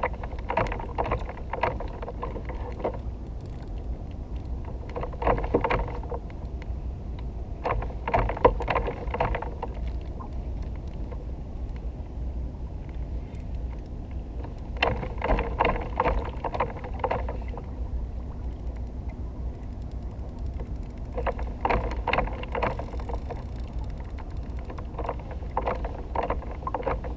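Spinning reel cranked in short spells, a rapid geared whirring and ticking about six times, as a hooked cobia is played in toward the kayak. Under it, a steady low rumble.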